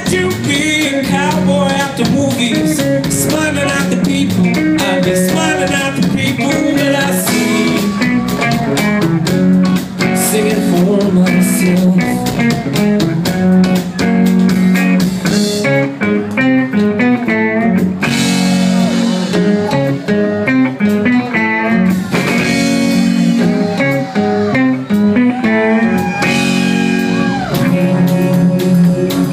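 A live rock band playing a long instrumental passage: electric guitar lead lines over strummed acoustic guitar, bass and a drum kit.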